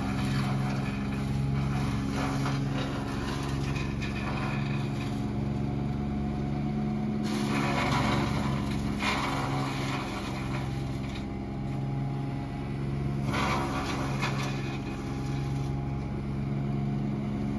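Trailer-mounted wood chipper's engine running steadily. It gets louder and rougher twice, about halfway through and again later, as branches go through and are chipped.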